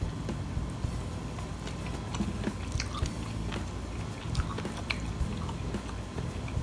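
A person chewing food with her mouth closed, close to the microphone, with many small irregular wet mouth clicks.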